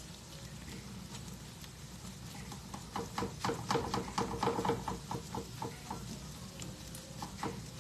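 A kitchen utensil clicking rapidly against a pan or bowl for a couple of seconds, stirring or whisking, over a steady low hum.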